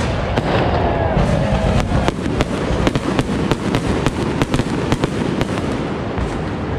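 Fireworks going off in a rapid, uneven series of bangs and crackles over a continuous low rumble.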